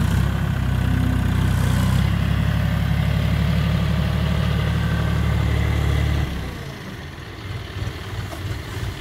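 John Deere 5310 tractor's three-cylinder diesel engine running steadily and loud while the hydraulic front loader lifts a full bucket. About six seconds in, it drops to a quieter, lower run.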